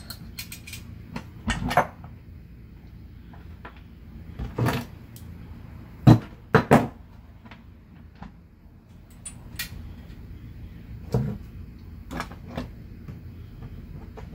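Scattered knocks and clicks of metal parts and hand tools being handled on a wooden workbench while a trailer brake actuator is put back together, the loudest a pair of knocks about six seconds in.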